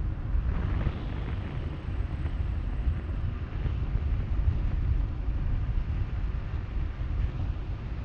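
Wind buffeting the microphone of a car driving slowly along a paved road: an uneven low rumble with faint road noise, and no distinct events.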